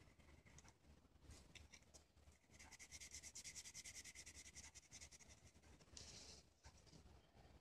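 Faint scratching of a felt-tip marker colouring origami paper: a few separate strokes at first, then quick back-and-forth scribbling from about three seconds in to about five, and a short scratch about six seconds in.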